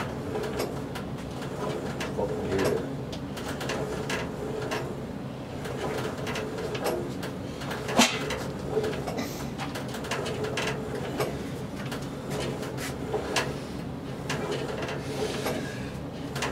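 Home gym lat pulldown machine in use: the cable running over its pulleys with a squeaky whir, and the weight stack clicking and knocking through repeated reps, with one sharp knock about halfway through.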